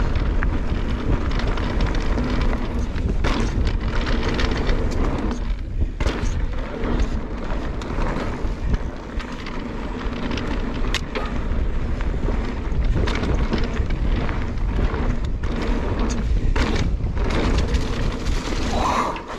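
Orbea Rise electric mountain bike riding fast down a gravel trail: steady wind rush over the camera microphone with tyres rolling on loose stones and repeated rattles and knocks from the bike over bumps.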